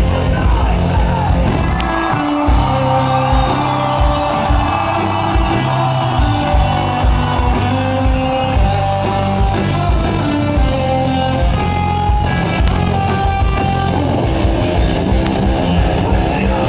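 Live rock band playing through a PA system: electric guitar, bass and drums with a steady kick-drum beat, and a voice singing.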